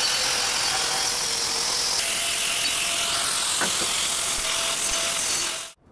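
Handheld angle grinder running steadily against a steel fire-fighting pipe, cutting it to length for welding.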